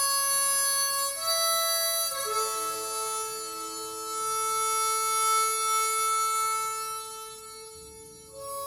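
Instrumental music of long held notes, several sounding together, changing about a second in and again just after two seconds, then fading before a new note enters near the end.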